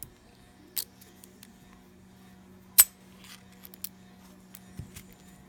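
Small metal clicks and taps from handling a Master Lock No. 3 padlock and its picking tools, with one sharp metallic clack almost three seconds in and a few lighter ticks after it. A faint steady hum lies underneath.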